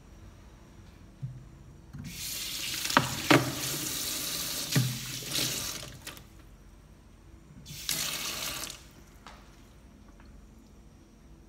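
Kitchen tap running into a sink for about four seconds, with three sharp knocks in the middle of it, then turned on again for about a second.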